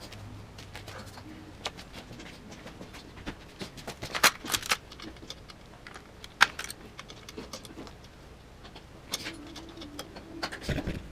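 Scattered metallic clicks and clinks, with a few sharper clanks about four seconds in and again past six seconds, fitting a roller drive chain being handled and fitted to a dirt bike.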